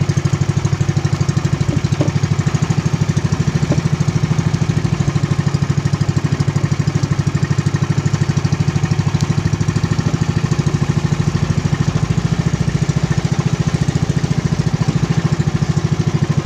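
Engine of a small outrigger fishing boat running steadily under way, with a fast, even chugging beat.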